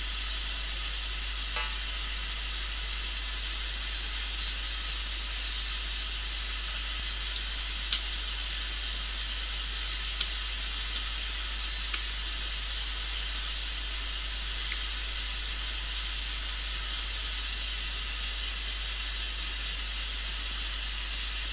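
White noise test signal played through a loudspeaker: a steady hiss, strongest in the upper range, with a few faint clicks.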